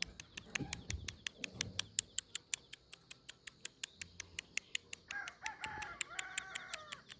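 A rapid, even series of sharp high chirps, about five a second, keeps going throughout. From about five seconds in, a chicken clucks over it.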